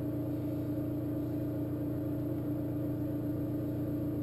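Steady low motor hum with one strong constant tone, unchanging throughout.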